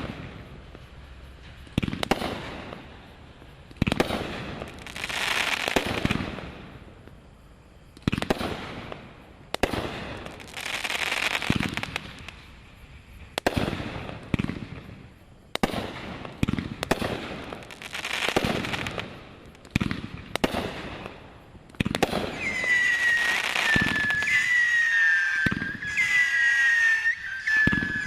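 Brothers Fireworks 'Schizo' firework shooting: sharp bangs every second or two, each followed by a spreading fizz lasting a few seconds. From about 22 seconds in, a run of high, slightly falling whistles sounds over continuous noisy firing.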